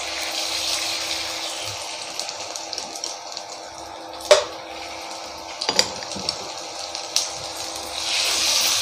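Marinated chicken pieces sizzling as they are laid into hot oil in a non-stick kadhai. The sizzle swells at the start and again near the end as more pieces go in, and a metal spatula clinks against the pan a few times, loudest a little before halfway.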